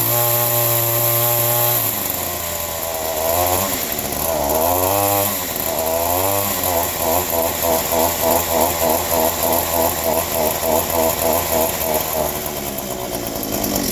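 Handheld leaf blower's small two-stroke engine running rough after sitting: it holds a steady high speed, then its revs rise and fall, then surge up and down about twice a second before fading near the end. The owner suspects it needs carburettor work.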